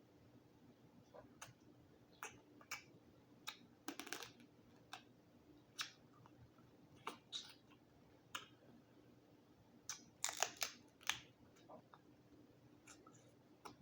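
Sporadic small cracks and clicks of a boiled Dungeness crab's shell being broken open and picked apart, with a louder run of cracks about ten seconds in.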